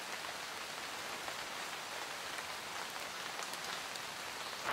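Steady rain falling on a forest campsite: an even hiss with fine, faint drop ticks.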